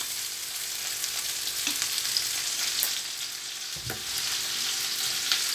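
Battered hake and sliced onion sizzling steadily in hot sunflower oil in a frying pan, the oil just topped up. About four seconds in there is a soft thump as the plastic oil bottle is set down on the counter.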